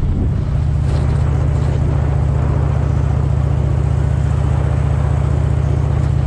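2010 Harley-Davidson Electra Glide Ultra Classic's V-twin engine running at a steady pitch while the bike is ridden, with a steady rushing noise over it.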